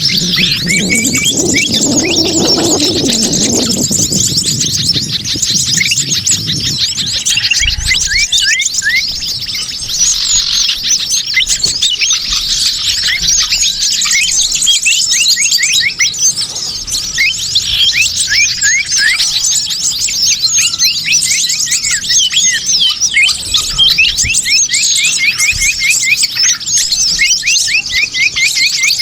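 Bird-lure recording: a dense, noisy mix of many small birds chirping at once, rapid high-pitched chirps repeating many times a second. A lower-pitched sound runs under the chirps for the first few seconds.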